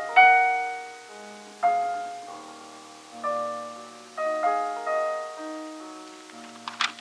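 Solo piano playing a slow classical piece: chords struck about every one and a half seconds, each left to ring and fade. A brief rustle near the end as a page of the score is turned.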